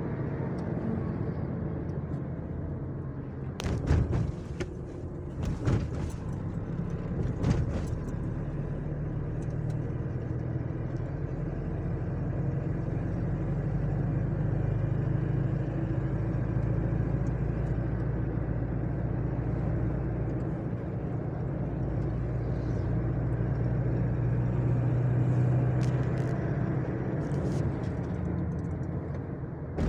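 Motor vehicle driving at a steady pace: a constant low engine drone with road noise, and a few sharp knocks or rattles about 4, 6 and 7.5 seconds in.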